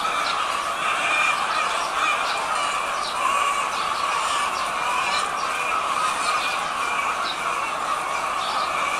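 A large flock of chickens in a poultry house: a steady din of many clucks and squawks overlapping, with no single bird standing out.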